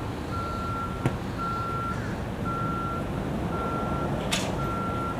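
Vehicle backup alarm beeping, one high steady beep about every second, over a low rumble. A sharp click sounds about a second in, and a brief hiss just past four seconds.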